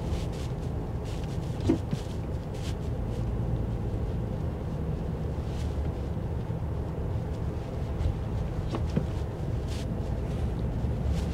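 Car driving along a city street: a steady low rumble of engine and road noise, with a few light clicks.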